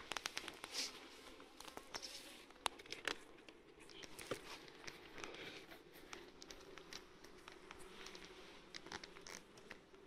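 Wooden beehive boxes being handled: scattered clicks, knocks and crackles of wood as a hive body is lifted and moved, over a faint steady hum of honeybees.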